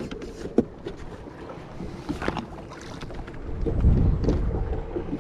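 Bass being handled on a measuring ruler in a boat: scattered knocks and clicks over a steady faint hum. Wind rumbles on the microphone from a little before four seconds in.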